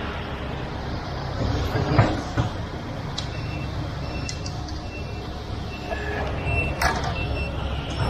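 Concrete mixer truck's diesel engine running at a steady low rumble, with a sharp knock about two seconds in and another near the end.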